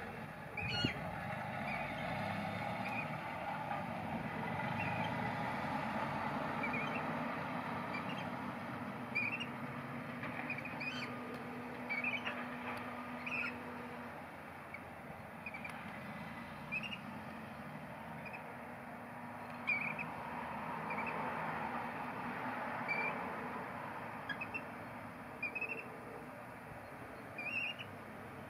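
Short bird chirps repeating every second or two over a steady background rumble, with a few sharp taps that stand out as the loudest moments.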